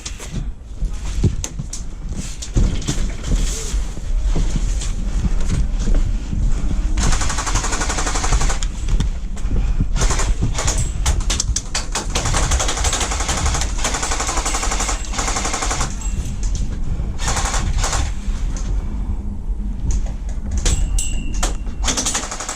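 Airsoft electric guns firing in repeated full-auto bursts, a fast clatter of shots heard again and again, heaviest from about a third of the way in.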